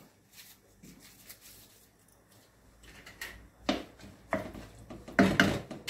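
Cookware handled at the stove: a few short knocks and clatters of a utensil or lid against a pan, coming after a quiet start and loudest near the end.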